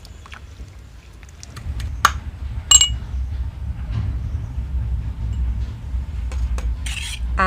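Ginger and garlic being pounded in a mortar with a pestle: dull, close-set thudding that starts a couple of seconds in, with two sharp clinks, the second one ringing.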